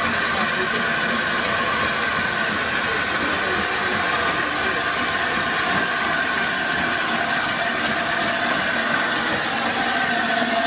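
Hunslet Austerity 0-6-0 saddle-tank steam locomotive drifting slowly past with its coaches: a steady hiss of steam and running noise, with a thin, steady high whine over it.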